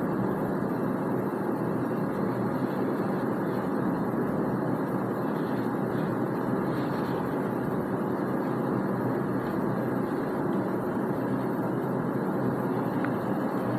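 Steady, even background hum with no speech, unchanging in level throughout.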